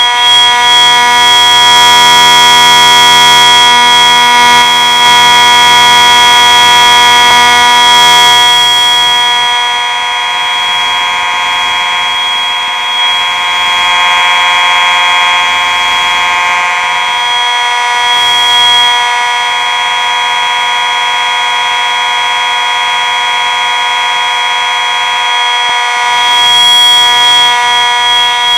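School fire alarm horns, a mix of Simplex units, sounding a loud, steady, unbroken tone during a test of the alarm system. The sound is a little quieter after about nine or ten seconds, then swells again near the end.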